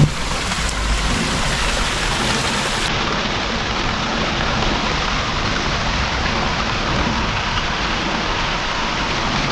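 Water rushing steadily: a loud, even noise that does not let up.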